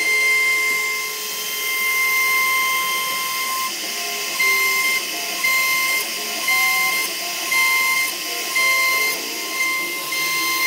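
CNC router spindle whining steadily as the bit carves a wooden door panel. From about four seconds in, the sound swells and drops roughly once a second as the cutter works through a row of short grooves.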